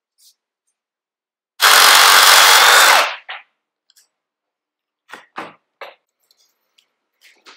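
A power tool runs in one loud burst of about a second and a half, then stops. A few seconds later come three short snips of wire being cut with hand cutters.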